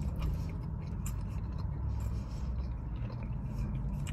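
Handling and eating noises from a burger: faint scraping and rustling with scattered small clicks, over a low steady hum.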